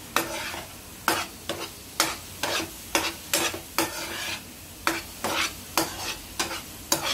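Slotted spatula scraping and stirring thick, crumbly palkova (milk fudge) around a non-stick frying pan, about two strokes a second, over a faint sizzle of the mixture cooking down.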